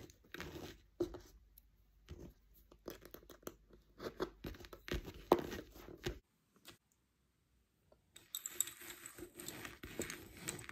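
Lace bobbins clicking and knocking against each other as pairs are crossed and twisted, with light handling rustle. The sound cuts off suddenly about six seconds in; near the end a faint hiss with soft rustling follows.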